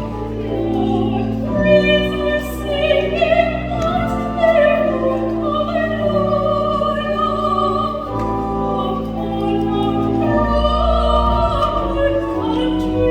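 Soprano singing a sustained melodic line with a wide vibrato over organ accompaniment, the organ holding long chords and bass notes that change every second or two.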